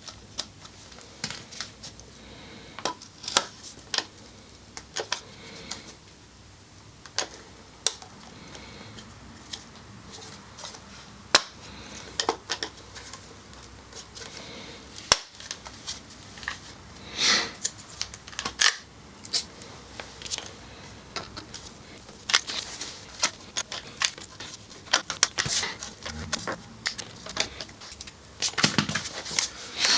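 Hand rivet gun setting pop rivets into a titanium exhaust silencer's end cap: irregular metallic clicks and clatter, with a few louder sharp cracks as rivet mandrels snap off.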